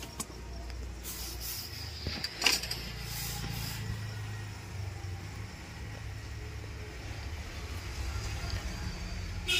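Steady low rumble of background noise, with a few small clicks and scrapes from handling the circuit board and soldering tools about two and a half seconds in.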